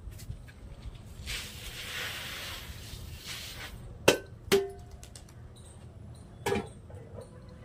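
Wet wheat grain pouring and scattering from a metal pan onto a tarpaulin, a hiss lasting about two seconds. Then the metal pan clangs three times, the second hit ringing briefly.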